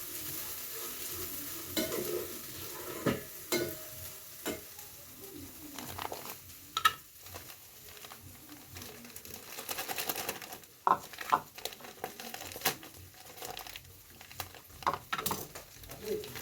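Food sizzling in a pan while it is stirred, with repeated sharp clicks and knocks of the utensil against the pan.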